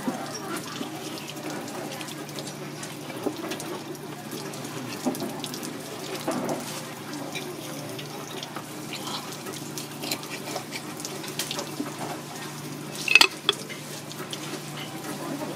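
Tap water running and splashing onto a wooden cutting board as the meat of a giant sea snail is rinsed, with scattered small clicks of knife and shell over a steady low hum. A single sharp knock near the end is the loudest sound.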